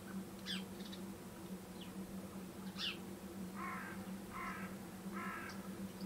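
Three harsh caws from a crow-family bird, spaced under a second apart in the second half, after a couple of thin high chirps from small birds. A steady low hum runs underneath.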